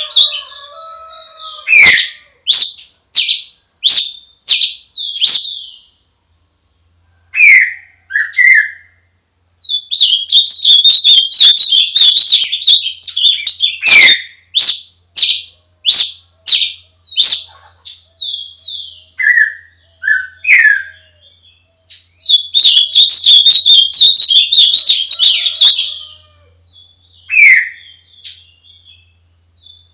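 A songbird singing loudly in long phrases of rapid high chirps and trills, broken by short pauses and single down-slurred whistled notes between phrases.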